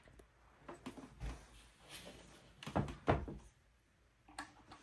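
Several light taps and knocks at irregular intervals, the loudest two close together about three seconds in.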